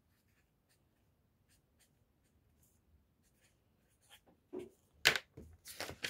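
Felt-tip pen writing on spiral-notebook paper: faint, scattered scratchy strokes, then a few louder scrapes in the last second and a half.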